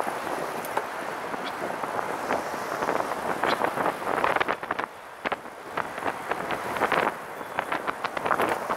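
Wind rushing over the microphone of a camera mounted on a moving recumbent trike, with road and traffic noise. About halfway through, rapid crackling clicks join in, in bunches.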